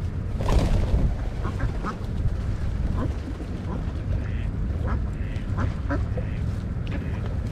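Ducks quacking, many short calls one after another, over a steady low rumble.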